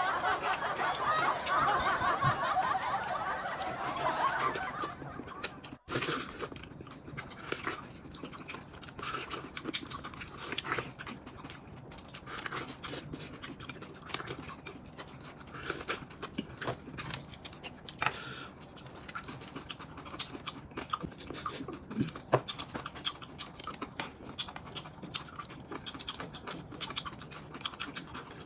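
People chewing food close to the microphone, with scattered small clicks and crackles. For the first five seconds a louder warbling sound sits over it, and it cuts off suddenly about six seconds in.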